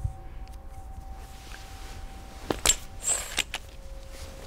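A quick cluster of sharp metallic clicks and knocks, the loudest about two and a half seconds in, with a bright ring on the loudest ones, over a faint steady hum.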